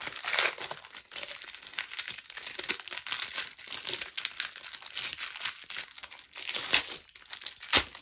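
Clear plastic wrapping crinkling and crackling as it is peeled off a compact mirror by hand, with the sharpest crackle near the end as the wrap is pulled free.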